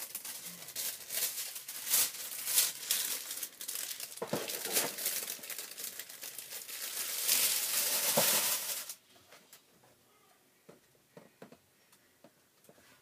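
Clear plastic bag crinkling and rustling as a new laptop is slid out of it, stopping suddenly about nine seconds in; a few faint clicks follow.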